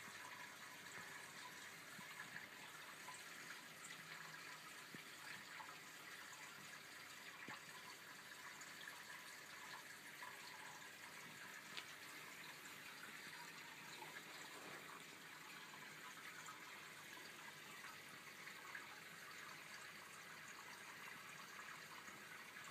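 Faint, steady trickling and bubbling of aquarium water, the sound of a tank's filter circulating the water.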